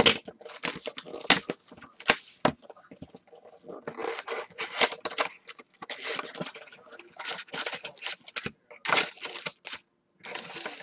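A cardboard box of trading cards being torn open and handled: irregular tearing, snapping and crinkling of the cardboard and wrapper.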